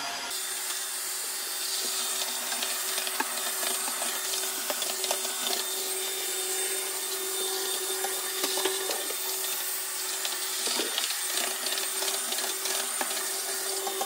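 Tineco S3 cordless wet/dry vacuum mop running steadily while mopping a tiled floor: a constant motor hum with suction hiss and a faint high whine.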